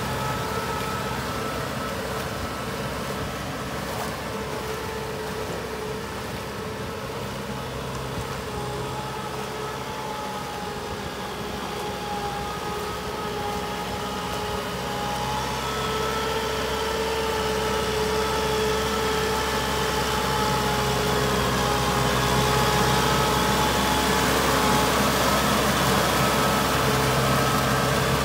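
Kubota M6040SU tractor's four-cylinder diesel engine running steadily under load while pulling a rotary tiller through wet paddy mud. It gets louder about halfway through as the tractor comes nearer.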